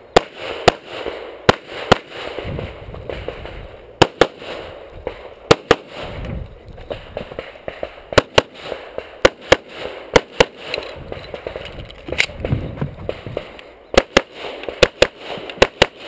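Semi-automatic pistol fired in quick pairs, about twenty shots in short strings with pauses between them.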